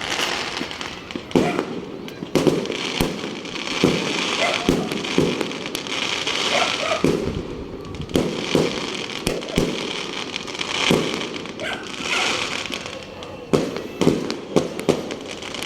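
Fireworks going off in numbers: irregular sharp bangs, sometimes several within a second, over a continuous crackle.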